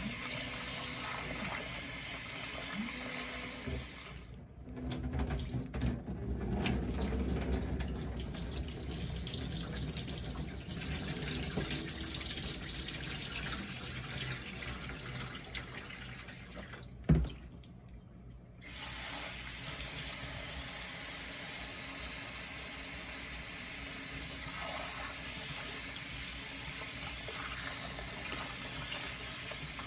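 Kitchen tap running water into a sink. The flow cuts out briefly about four seconds in, then again after a sharp knock around seventeen seconds, and runs steadily once more.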